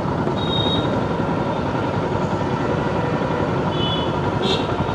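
Steady road traffic noise: the continuous rumble of vehicle engines and tyres in a busy street, with a couple of faint short high tones about half a second and four seconds in.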